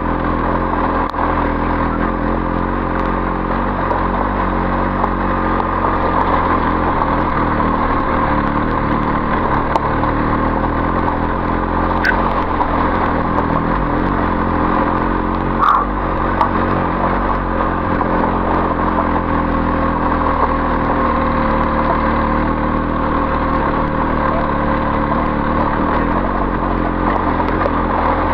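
BMW R 1250 GS Adventure's boxer-twin engine running at steady low revs while riding over loose gravel, with two brief sharp ticks near the middle.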